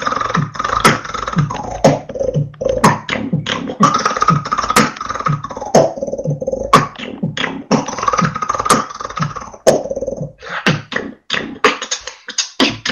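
Vocal beatboxing heard through TeamSpeak voice chat: a steady beat of bass kicks and sharp snare clicks at about two hits a second, with a held humming tone over parts of it. The beat thins out briefly about ten seconds in.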